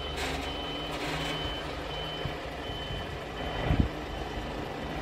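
Truck-mounted mobile crane's reversing alarm beeping, a short high beep repeated steadily, over the low steady running of the truck's engine as it backs up.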